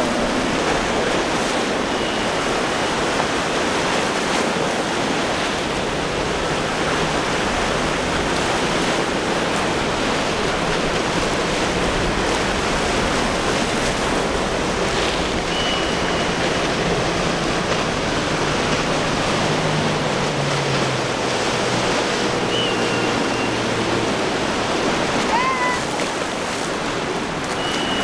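Steady rush of surf breaking in the inlet, with wind on the microphone. The outboard motors of a passing center-console boat drone low beneath the surf about two-thirds of the way through, and a few short high chirps sound now and then.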